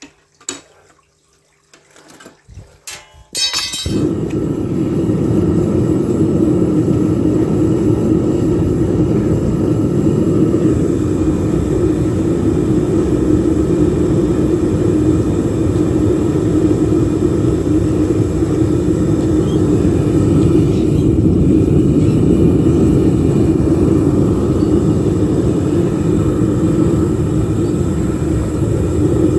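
Home foundry furnace being restarted to melt bronze: a few clicks, then a few seconds in the burner lights with a sudden, steady, loud, low rushing sound that keeps going.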